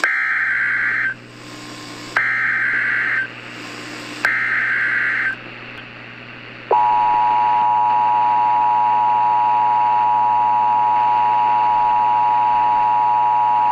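Emergency Alert System broadcast: three SAME data-header bursts, each about a second of fast, high buzzing data tones with short gaps between, then about a second and a half later the EAS two-tone attention signal starts, a loud steady dual tone that holds to the end.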